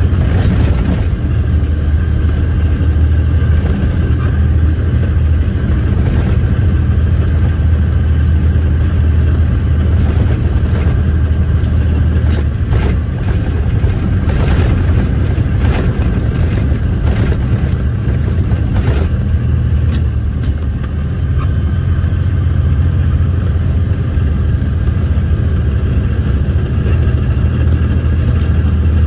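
Loaded off-highway logging truck's diesel engine running steadily under load, heard from inside the cab, with scattered knocks and rattles midway through.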